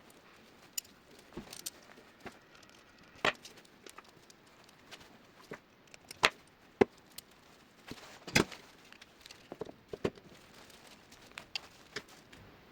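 Small metal bike parts and tools being handled and fitted: a string of irregular clicks and knocks, the sharpest a few seconds in, about halfway and again a little later.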